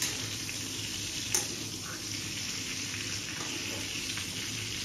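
Chunks of pork belly sizzling steadily in a hot pan as their fat renders out, with a sharp click about a second and a half in.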